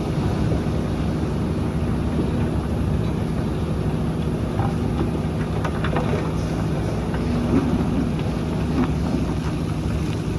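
Heavy diesel engine of the excavator or tipper truck running steadily, with a few faint knocks in the second half.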